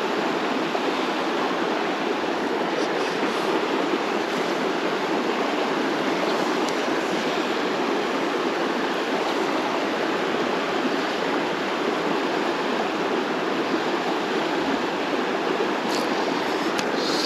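Steady rush of flowing water in a small trout creek, an even hiss with no change. A few faint ticks come near the end.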